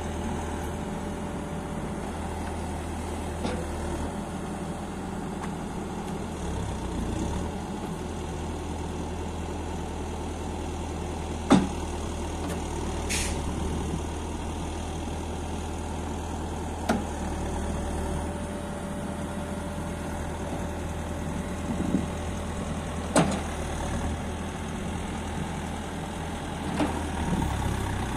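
2014 Terex TLB890PS backhoe loader's diesel engine running steadily, with a few sharp metallic knocks, the loudest about a third of the way in, and a short hiss soon after.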